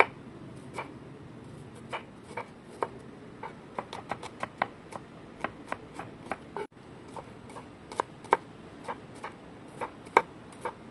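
Steel cleaver slicing red shallots thinly on a wooden cutting board: each stroke of the blade knocks the board with a sharp click, about two to three times a second at an uneven pace.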